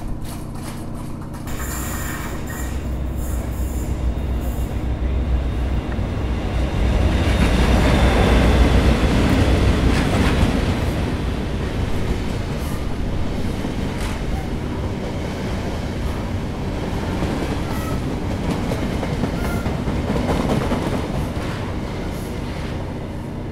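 A train running on the rails: a continuous rumble with a steady low hum, swelling loudest about seven to ten seconds in, then easing off a little.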